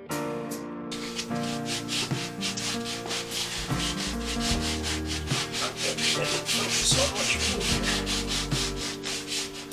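Sanding sponge rubbed back and forth by hand along the painted edge of a wooden cabinet top, in quick even strokes that start about a second in. It is a light scuff-sanding that smooths the paint rather than taking it off.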